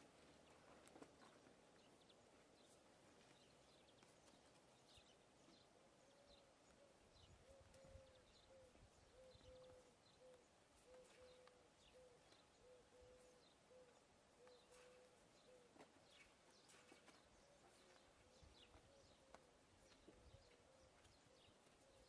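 Very quiet: horses feeding on dry hay, with faint scattered clicks and rustles from hooves and muzzles in the dry grass. From about six seconds in, a faint low call repeats about twice a second.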